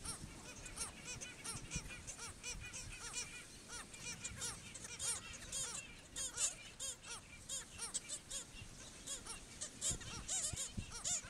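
Black skimmer colony calling: many short barking calls overlapping in a continuous chorus.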